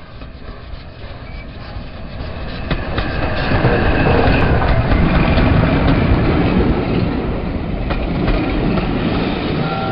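LNER A1 Pacific steam locomotive 60163 'Tornado' passing close with its train. The sound builds as it approaches, is loudest about four to seven seconds in and then eases, with the wheels clicking over rail joints.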